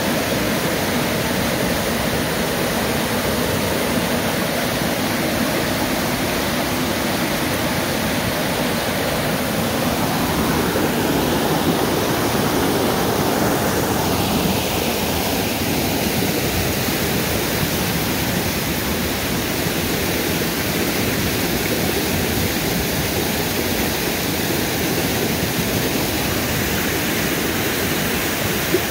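Fast, muddy river rushing loudly and steadily, with water pouring over the edge of a low road crossing. The sound changes in tone partway through as the spilling water comes close.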